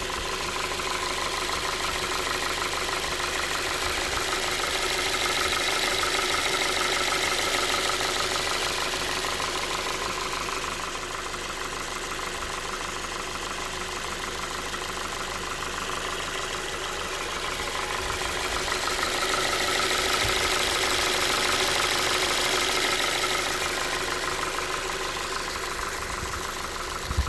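Ford 2.5-litre engine running with a knock (стук) audible through its sound, which the owner records as an engine fault. It swells louder twice, about five seconds in and again about twenty seconds in, then settles back.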